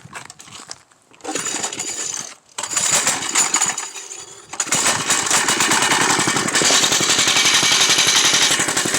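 Briggs & Stratton 5 hp single-cylinder engine starting: two short bursts, then it catches about four and a half seconds in and runs steadily with a fast, even firing beat.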